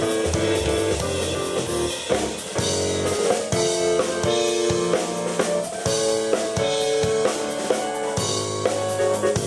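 Live rock jam by a keyboard and drum kit duo: held keyboard chords and a bass line over a steady drum beat with bass drum and snare.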